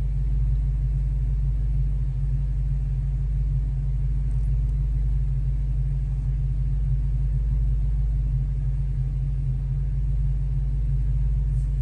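2014 Mustang GT's 5.0-litre V8 idling steadily, heard from inside the cabin as a low, even rumble.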